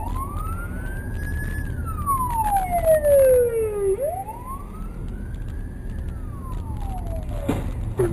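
Police car siren wailing, its pitch sweeping up and then slowly down about every four seconds, over steady road rumble. Near the end there is a sharp bang, as a car crashes ahead, and the sound cuts off.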